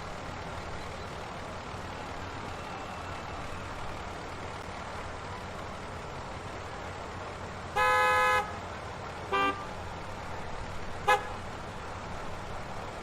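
Steady hum of congested road traffic, with car horns sounding three times: a longer blast about eight seconds in, the loudest thing here, then a short toot and a brief beep over the next few seconds.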